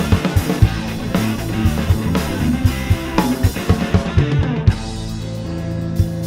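Live band playing an instrumental passage: a drum kit with bass drum and snare keeps a steady beat under guitar and bass. About three-quarters of the way through, the drumming drops out, leaving held guitar and bass notes with a single drum hit near the end.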